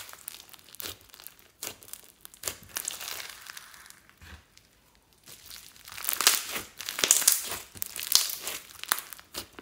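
Hands kneading and squeezing a glossy slime mixed with clay, glitter and small beads, making squishy crackling and popping. The crackling thins out and goes quiet a little past the middle while the slime lies stretched, then comes back louder and denser as the hands squeeze it again.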